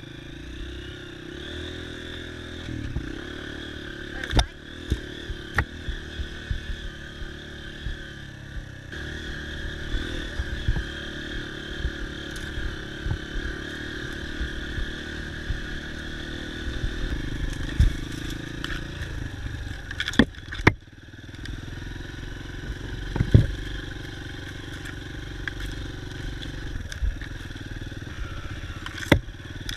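Dirt bike engine running steadily during an off-road ride, its note shifting a few times, with sharp knocks and clatter every so often, loudest about 4, 20, 23 and 29 seconds in.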